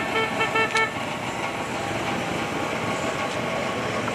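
A horn gives a rapid run of short, high toots in the first second, over steady outdoor background noise.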